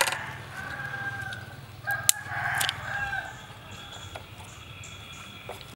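A rooster crowing twice, the second crow about two seconds in, with a few sharp clicks during the crows.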